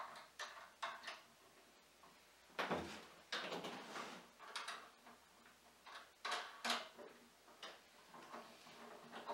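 Irregular light clicks, taps and scrapes of a star knob being threaded onto a steel threaded rod and handled against the wooden table, with one longer scrape about two and a half seconds in.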